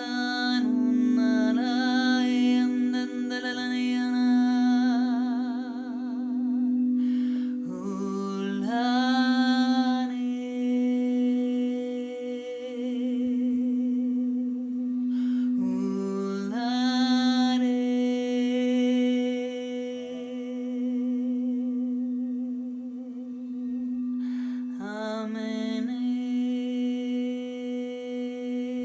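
Wordless humming in long held notes with a wavering vibrato, a new phrase starting about every eight seconds, over a steady crystal singing bowl drone.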